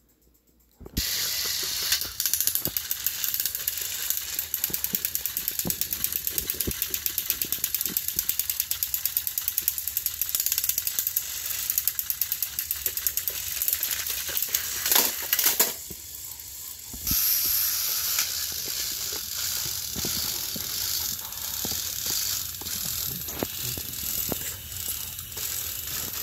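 Battery-powered Thomas & Friends toy engine's motor and gears running as it drives along plastic track, a steady whirring with fast, even ticking. It starts about a second in and changes briefly about sixteen seconds in before running on.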